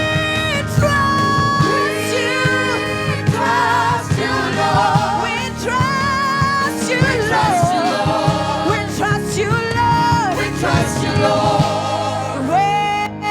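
Gospel choir singing with instrumental accompaniment, several voices holding long notes with vibrato.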